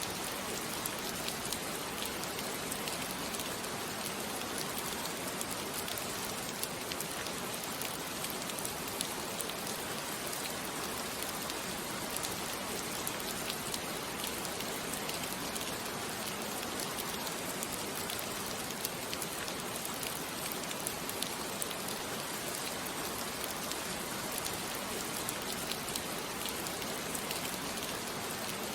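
Steady rain falling on a surface, an even patter flecked with many small drop ticks.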